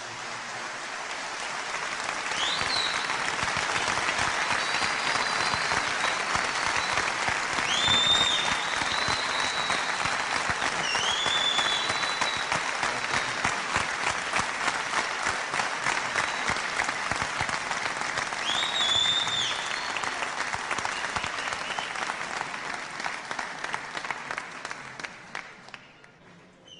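A concert audience applauding after a sung phrase, with a few high whistles rising over the clapping. The applause fades away near the end.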